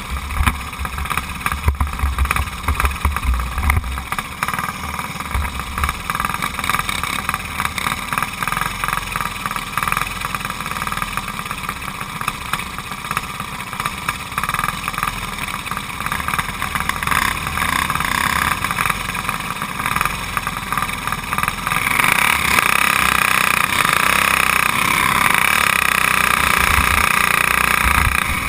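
Racing go-kart's Briggs & Stratton Raptor engine running, heard onboard; it gets louder about three quarters of the way through as the kart pulls out onto the dirt oval.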